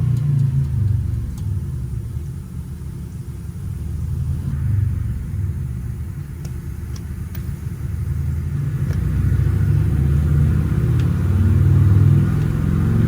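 Bass-heavy background music, with a few faint clicks over it.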